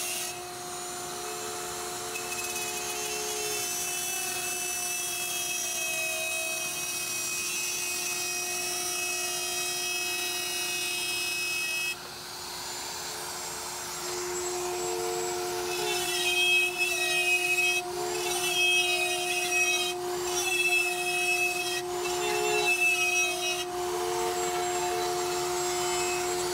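Porter-Cable plunge router running with a 1/4-inch carbide straight bit, guided by a bushing around a template to cut a round hole through plywood a little at a time. It makes a steady whine, then in the second half it grows louder and uneven, dipping in pitch as the bit bites into the wood.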